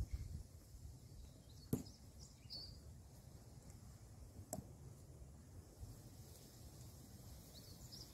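Faint outdoor ambience: a low, unsteady rumble, two sharp knocks about three seconds apart, and a few faint bird chirps.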